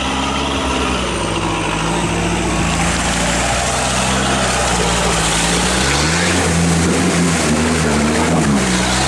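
Toyota Land Cruiser 70-series off-roader's engine pulling through deep mud, its revs swinging up and down repeatedly in the second half. Mud and tyre churning grows over the engine as the wheels dig in.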